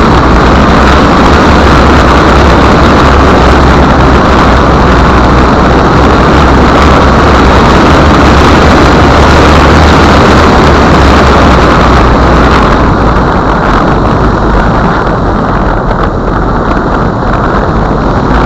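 Very loud road and wind noise under a moving Land Rover Discovery, picked up by a small camera mounted beneath the body, with a steady low engine and drivetrain hum. The hiss eases somewhat about 13 seconds in.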